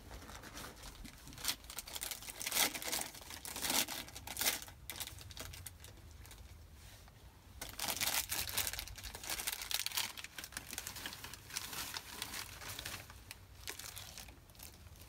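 Plastic food packaging crinkling and tearing as it is handled and opened by hand, in two stretches of irregular rustling, the second starting about halfway through.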